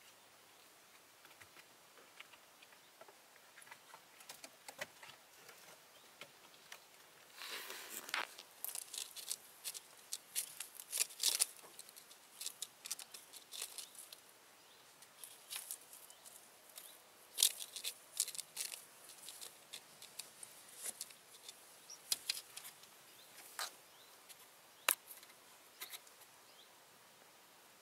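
Kittens scrabbling and playing close by: irregular sharp scratches, clicks and short rustles of paws and claws on old wooden boards and in leaves and twigs. Almost nothing for the first several seconds, then scattered scratches and rustles with a few louder bursts.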